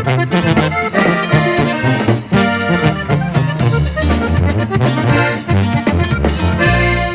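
Background music: an instrumental passage of Regional Mexican music with a steady beat.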